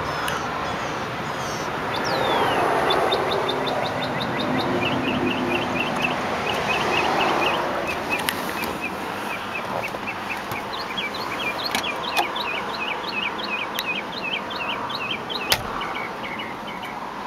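Small birds chirping in quick runs of short, high chirps over a steady background rush. A few sharp clicks come through, the loudest about fifteen seconds in.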